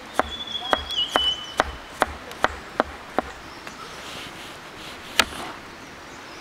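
A large knife chopping on a wooden cutting board as onion and tomato are sliced: about eight quick, even strokes over the first three seconds, then a single louder knock about five seconds in.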